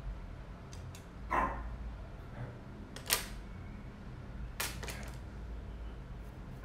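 A few short, sharp clicks and taps as makeup brushes and products are picked up and set down, the loudest about three seconds in, over a faint low hum.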